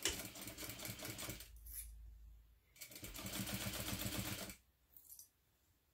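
Juki sewing machine stitching in two short runs: it stops about a second and a half in, then runs again for about two seconds, basting two layers of fabric together along the edge.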